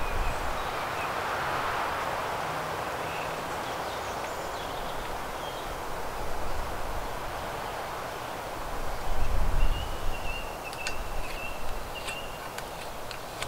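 Hand auger slowly boring into a wooden post, a steady grinding hiss of the bit cutting wood, with a few sharp ticks near the end. A bird chirps faintly near the end.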